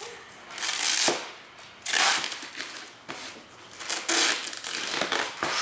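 Packing tape being pulled off the roll in several long, ripping pulls and pressed onto a cardboard carton.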